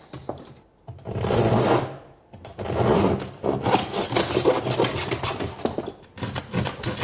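Hand saw, most likely a hacksaw, cutting a tube of natural material into wind-chime blanks: quick repeated rasping strokes that start about a second in, break off briefly, then run on steadily.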